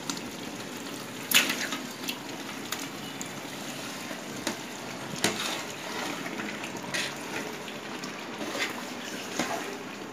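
Chicken pieces slid into a large aluminium pot of hot masala gravy and stirred with a long metal ladle: a steady wet sizzle of the cooking gravy, with scattered sharp clinks of the ladle against the pot.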